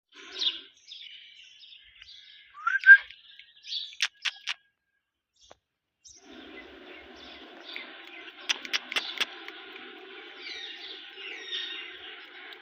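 Ringneck parrot chirping and calling, with one loud rising call about three seconds in and a few sharp high clicks. After a short silent gap about halfway through, a denser, steady chirping chatter continues, with more sharp clicks.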